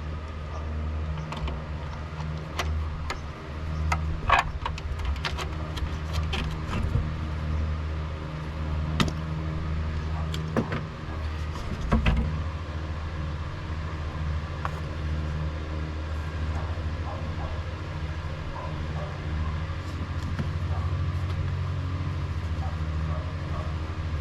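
Sharp clicks, clinks and knocks of hand tools and engine parts being handled during intake manifold removal, thick for the first dozen seconds and then sparse, over a steady low hum.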